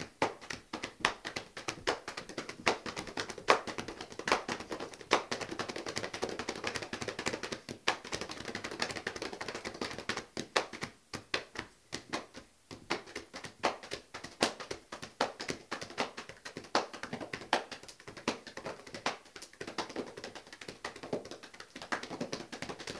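Hambone body percussion: hands slapping the thighs and chest in a fast, steady rhythm of sharp slaps, several a second.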